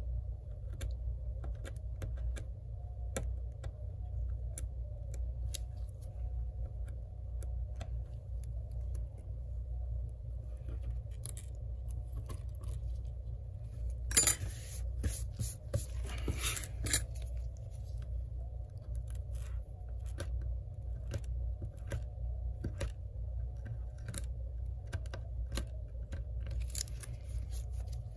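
Metal tweezers clicking and scraping against an iPad's metal frame and LCD edge as black glue is picked away. There is a louder cluster of clicks and scraping about halfway through.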